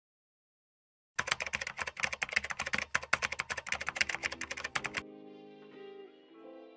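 Rapid computer-keyboard typing clicks, used as a sound effect for on-screen text being typed out. They start about a second in and stop abruptly near five seconds. Soft sustained music notes follow and fade away.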